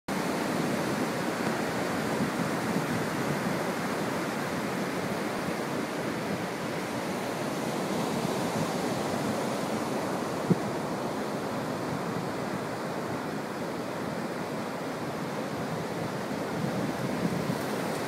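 Ocean surf breaking steadily on a flat sandy beach, a continuous wash of noise, with wind on the microphone. A single sharp click about ten and a half seconds in.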